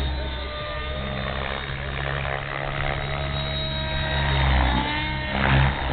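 Blade 700X electric RC helicopter in 3D flight: motor and gear whine over rotor noise, the pitch shifting up and down as the head speed and blade load change, with louder swells near the end.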